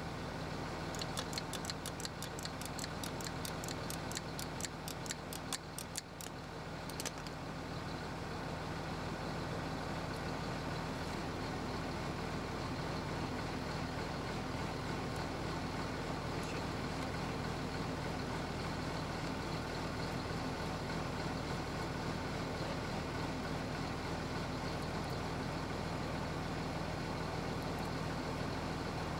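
Tractor engine idling steadily, a continuous low hum. For the first few seconds a quick run of light clicks, about five a second, sounds over it.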